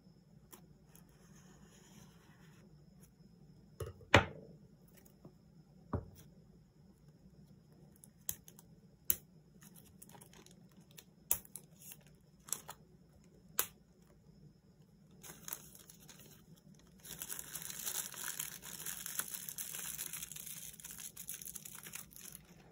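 Clear plastic shrink-wrap on a phone box being slit and torn off: a series of sharp crackling snaps, the loudest about four seconds in, then a continuous crinkling for the last several seconds as the film is peeled away and crumpled in the hand.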